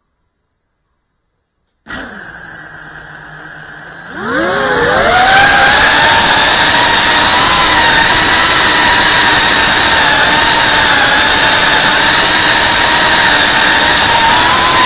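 A motor whine that comes in faintly about two seconds in, rises sharply in pitch around four seconds, then holds a loud, steady high whine.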